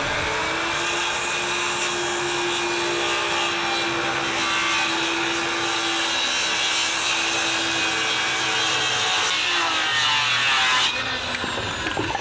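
Electric circular saw running steadily as it cuts along a chalk line through the overhanging ends of wooden deck boards, trimming them flush over the rim joist. After about eleven seconds the cut ends and the blade spins down.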